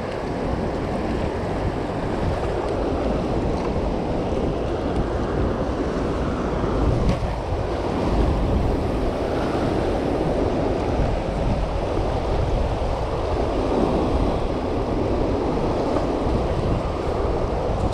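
Rushing, churning tailwater from a hydroelectric dam's running generators, a steady roar of turbulent water against the rocky bank, with wind buffeting the microphone.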